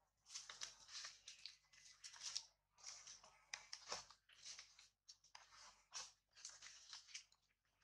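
Faint, irregular crunching and rustling of dry fallen leaves as monkeys move and scuffle on the ground.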